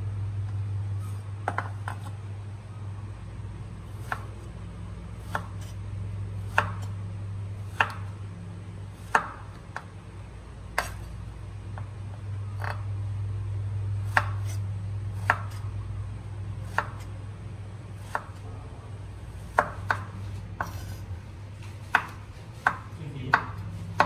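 Chef's knife cutting through peeled eggplant onto a wooden cutting board, slicing it into strips and dice. About twenty separate knife strikes sound, mostly about a second apart and a few quicker near the end, over a steady low hum.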